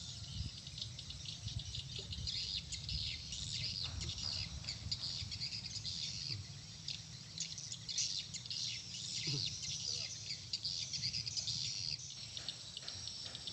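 Wildlife chorus of dense, continuous high-pitched chirping, over a low rumble.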